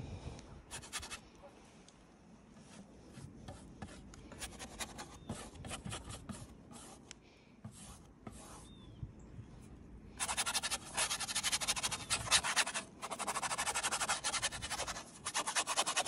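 Paintbrush scrubbing dark oil paint onto a canvas board. Scattered short strokes come first, then about ten seconds in a louder run of quick back-and-forth scrubbing.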